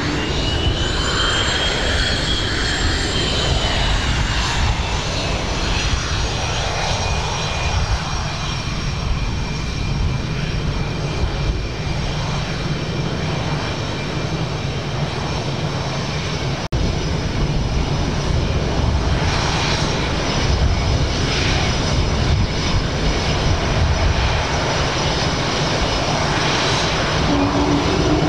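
Twin GE F404 turbofan engines of an F/A-18 Hornet taxiing at low power: a steady high-pitched whine over a low rumble. The whine rises a little and falls back in the first few seconds.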